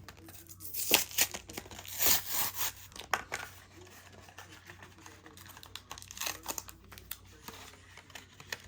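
Pokémon card packaging crinkling and tearing as it is opened by hand, in irregular rustles, loudest for a couple of seconds about a second in and again briefly near six seconds.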